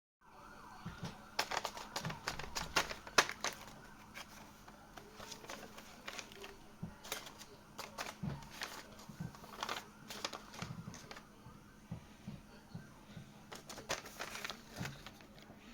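Squishy toys handled close to the microphone: irregular taps, clicks and crinkles, busiest in the first few seconds.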